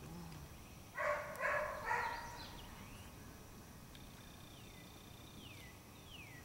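A dog barks three times in quick succession. Later, a bird gives a run of short falling whistled notes.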